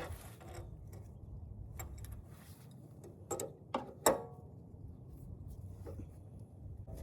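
Hand tools clicking and clanking on metal fittings while a blown hydraulic line is being taken off, in a few irregular strikes with the loudest about four seconds in, over a low steady rumble.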